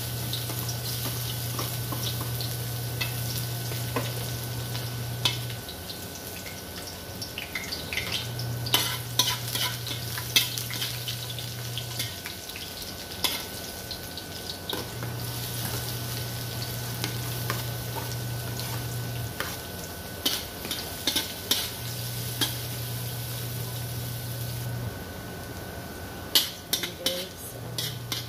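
Minced garlic and chopped onion sizzling as they fry in a large metal wok, with a metal spoon clinking and scraping against the pan as they are stirred. A low hum starts and stops several times.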